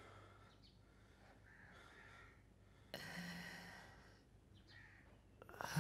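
Laboured breathing of a bedridden, terminally ill man: faint breaths, then a sudden louder breath about three seconds in that fades over a second, and another sharp breath at the very end.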